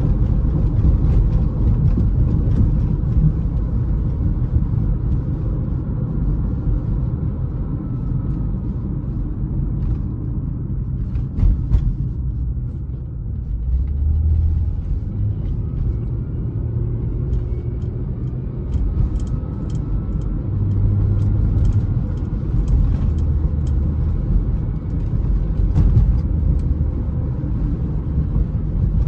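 Steady low rumble of road and engine noise inside a moving car's cabin, with a brief knock about eleven and a half seconds in.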